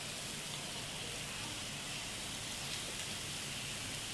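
Oil sizzling steadily under a thick urad-dal dosa frying on a nonstick tawa over a high flame, as the dosa crisps.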